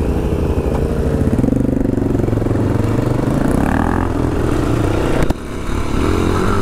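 Adventure motorcycle engine running under changing throttle, its note rising and falling. About five seconds in there is a sharp click, and the engine briefly drops off before picking up again.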